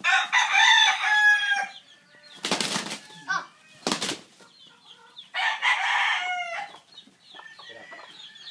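Rooster crowing twice, long calls at the start and about five seconds in, with two short bursts of wing-beating from the sparring gamecocks in between.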